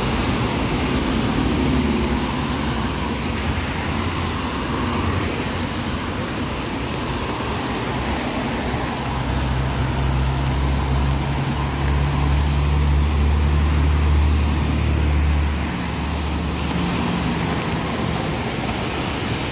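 Road traffic on a rain-wet street: cars and vans driving past with steady tyre hiss and engine rumble. A nearby vehicle's low engine drone is strongest through the middle.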